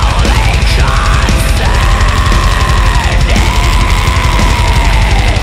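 Heavy metal song played by a full band: drum kit, distorted guitars and bass, dense and loud throughout, with long held notes that bend down in pitch at their ends.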